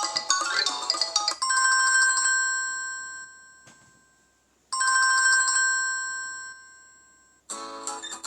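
Built-in ringtones of a Samsung Galaxy Tab Active tablet on Android 5, played one after another. A mallet-like melody ends about a second and a half in, then a telephone-style ringtone gives two rings about three seconds apart, each a short pulsing ring that leaves a chime fading out, and a strummed-guitar ringtone starts near the end.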